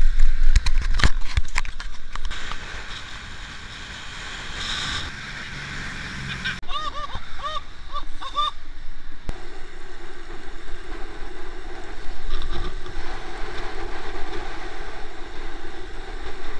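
Wind and road noise rushing over the microphone of a camera on a moving road bike, with a few sharp knocks at the start. A few seconds in, a cyclist laughs in short bursts for about two seconds.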